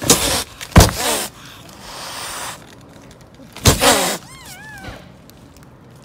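Mother cat hissing and spitting in two sharp, loud bursts with a falling growl-yowl in each and a softer hiss between them, the defensive warning of a queen guarding her kittens. A kitten mews a few times in high, rising-and-falling calls after the second burst.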